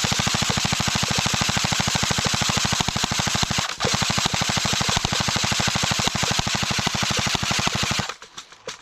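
Airsoft gun firing one long, rapid full-auto stream of shots that stops suddenly about eight seconds in, with a brief break near four seconds.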